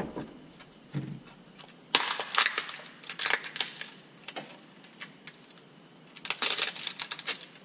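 New connecting rod bearing shells being unwrapped and handled at a workbench: quick runs of crinkling packaging and light clicks, in two bursts, one about two seconds in and one near the end.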